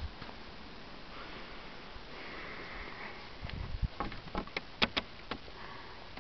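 Hand digging into straw bedding and finished compost, a faint rustle with a quick run of sharp crackles and clicks about four to five seconds in.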